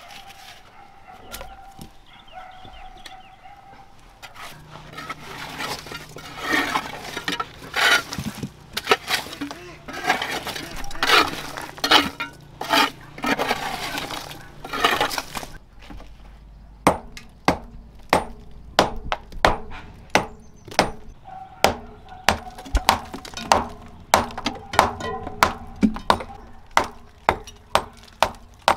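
A hammer raking out charcoal, wood shavings and debris from inside an old brick furnace's firebox: dense crackly scraping and rustling. About halfway through this gives way to the hammer chipping old cement off the furnace's brick top, with sharp knocks about twice a second.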